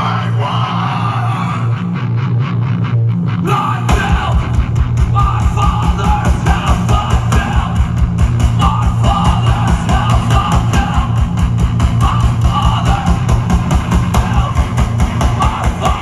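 Loud live heavy rock music from a two-piece band: drums, guitar and vocals. About four seconds in, a fast, steady kick-drum pulse starts under the sustained low notes.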